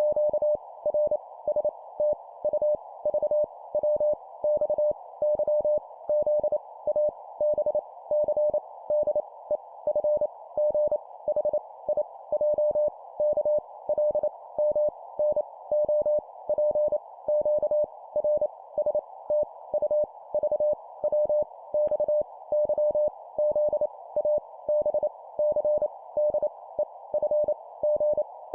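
Morse code letters sent at 25 words per minute: a single steady mid-pitched tone keyed into dots and dashes, one character at a time with short pauses between them, over a steady hiss.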